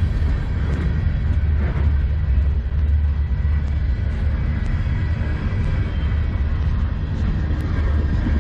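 Freight cars of a manifest train rolling past at close range: a steady, loud low rumble of steel wheels on the rails.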